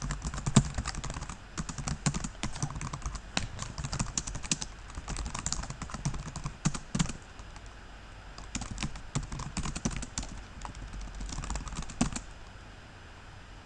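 Typing on a computer keyboard: irregular bursts of keystroke clicks with short pauses between them, stopping near the end.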